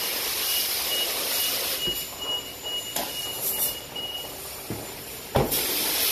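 Self-service car wash pressure wand spraying water onto an SUV, a steady hiss that eases about two seconds in and then picks up again. A high beep repeats in short dashes through the first four seconds, and one loud thump, the loudest sound, comes about five seconds in as the SUV's door is shut.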